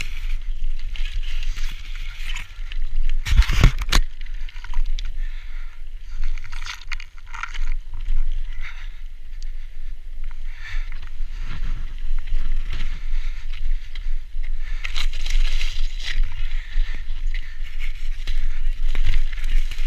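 Mountain bike descending rock slabs and loose scree: tyres crunching and scraping over stone and the bike rattling, over a steady low rumble. A loud clatter about three and a half seconds in.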